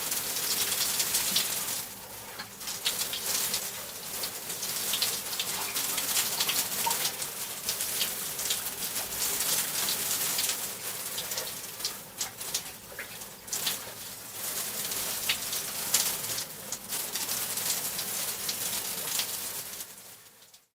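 Shower running: water spraying from the showerhead and spattering, uneven in loudness with brief dips. It fades out quickly near the end.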